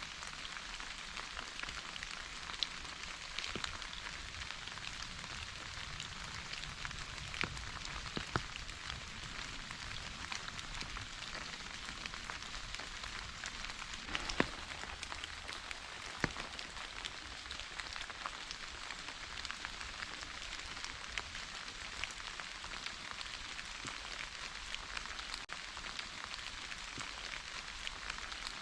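Steady rain falling, an even hiss with many individual drops ticking on a surface, a few drops louder than the rest.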